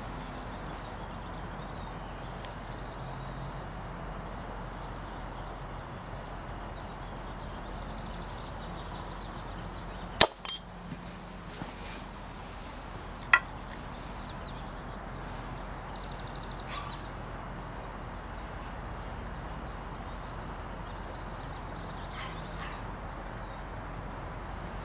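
Obsidian prismatic blade breaking off the core under slow pressure from an antler-tipped chest crutch: a sharp crack about ten seconds in with a second snap right after it, then a single sharp click a few seconds later.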